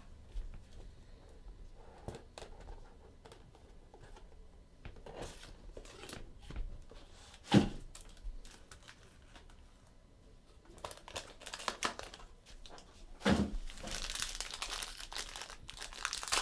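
Trading-card pack wrappers crinkling and tearing open while cards are handled, with faint rustles and clicks. There are two sharp knocks, about seven and thirteen seconds in, and a louder stretch of crinkling near the end.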